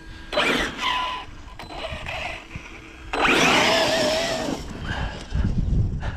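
Small electric motor whining up in two bursts, a short one near the start and a louder, longer one from about halfway, its pitch wavering.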